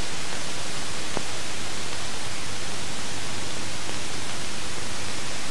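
Steady, even rushing noise of a jet engine running, with no change in pitch or level, and a single faint click about a second in.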